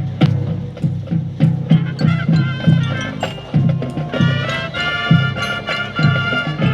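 Marching band playing: drums and percussion keep a steady beat of about two strokes a second, and the winds come in with held chords about two seconds in, swelling fuller about four seconds in.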